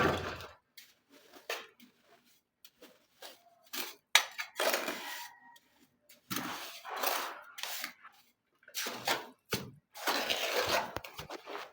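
Trowel scraping cement mortar onto a wall to patch it, in irregular strokes of about a second, with short knocks between.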